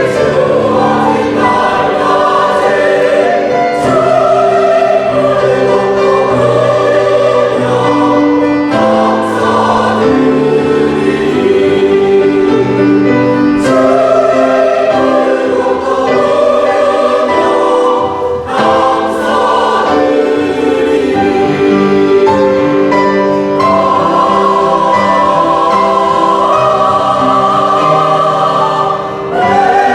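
Church choir singing a hymn anthem in several parts, with short breaks between phrases.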